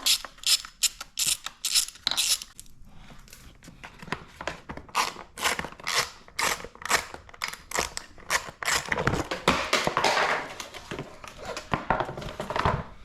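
Short, sharp clicks and rattles of hand tools working screws and the plastic front fender of a dirt bike, a few clicks a second, with a denser stretch of scraping and rattling about nine seconds in as the fender screws are taken out.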